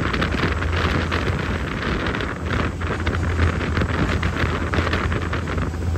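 Wind buffeting a phone microphone on the deck of a moving fast ferry, over the boat's steady low engine drone.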